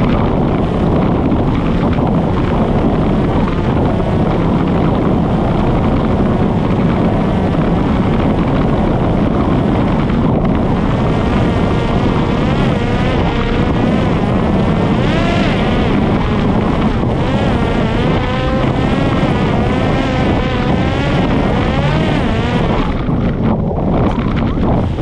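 Parrot Disco fixed-wing drone's electric motor and pusher propeller whining in flight, its pitch wavering up and down, with wind noise on the microphone. This is the original motor, which the owner says sounds unwell, running at too high an rpm.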